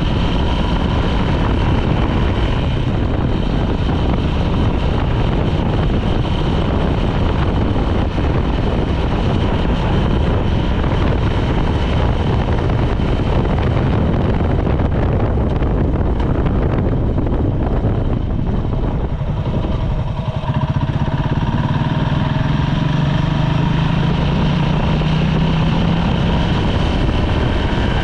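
Honda CB400SS motorcycle, a 400 cc single-cylinder, running steadily at road speed under heavy wind noise. About twenty seconds in the sound dips briefly, and after that a low engine note stands out more clearly.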